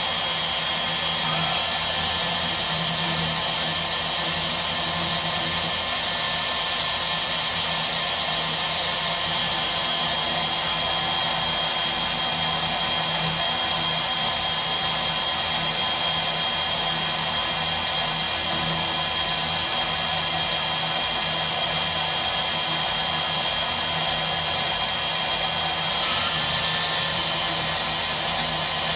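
Milwaukee portable bandsaw running steadily under power, its motor giving a constant high whine.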